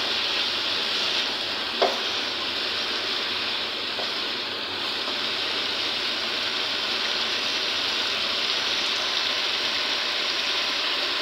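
Chicken and shredded vegetables frying in oil in a nonstick wok, a steady sizzle as they are stirred with a silicone spatula, with a single knock about two seconds in.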